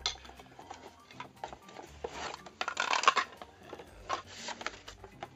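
A cardboard box and a plastic toy being handled: rustling, scraping and light knocks as a hand reaches into the box. The loudest rustles come about two to three seconds in.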